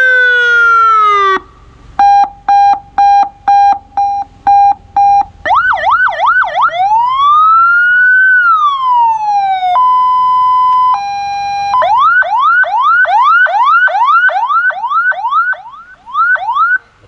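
An ambulance's electronic siren cycling through its tones. First a falling sweep, then rapid beeping about three beeps a second, a quick warble, one slow rising and falling wail, and a two-tone high-low. From about twelve seconds in it plays a fast yelp, repeating about three times a second.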